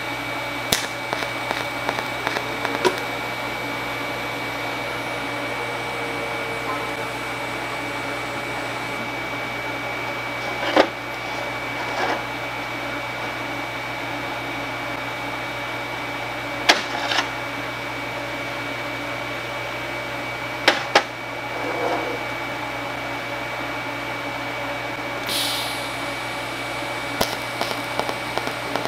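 Steady hum of a running TIG welding setup with a constant high whine, broken by sharp clicks and taps of the torch and small parts being handled at the steel bench. Near the end comes a quick run of short ticks as the TIG arc is struck on the gear's dog.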